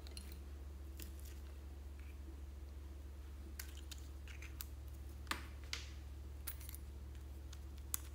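Faint, scattered clicks and taps of small plastic lipstick tubes and caps being handled and opened, over a low steady hum.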